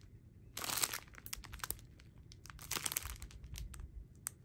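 Small plastic bags of diamond painting drills crinkling as they are handled: a louder rustle about half a second in, then scattered crackles.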